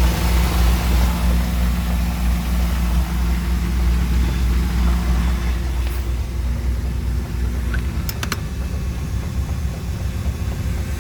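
MerCruiser 4.3 V6 marine engine running steadily at low speed with a knocking noise. A few sharp clicks come about eight seconds in.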